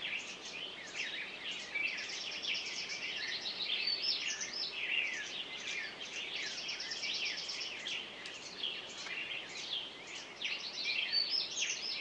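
Many songbirds singing at once: a dense spring chorus of overlapping chirps, quick whistles and short trills.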